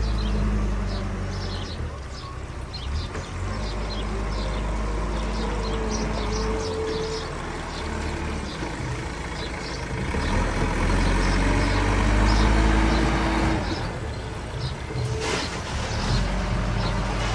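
Diesel engine of heavy machinery running steadily, louder from about ten seconds in until near fourteen, with short high chirps throughout.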